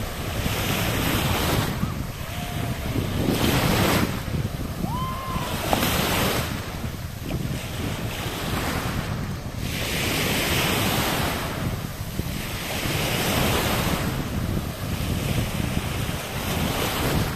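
Small sea waves breaking and washing up a sandy shore, the rush swelling and fading every two to three seconds, with wind buffeting the microphone.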